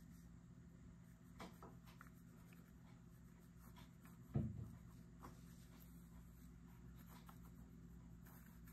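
Faint scratching strokes of a thin liner paintbrush working paint onto a painting board, over a faint steady low hum. A single soft low thump about four and a half seconds in.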